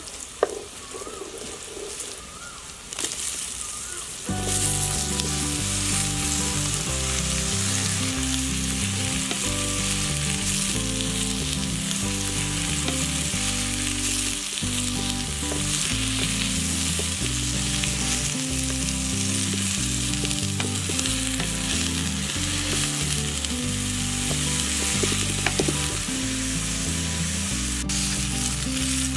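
Chopped bottle gourd frying in hot oil in a metal pan on a wood fire, with a spatula stirring. The sizzle is soft at first over the onions and spices, then jumps to a loud, steady sizzle about four seconds in as the gourd pieces go into the oil. Near the end water is poured in.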